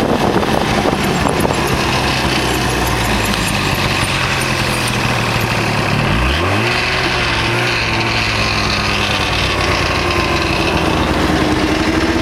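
Snowmobile engine running steadily, its pitch climbing sharply about six seconds in as it revs up.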